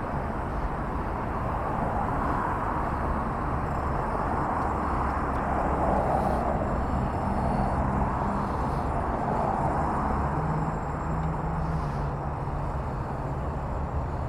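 Steady vehicle engine and road noise, a low rumble with a broad hiss that swells and fades over a few seconds.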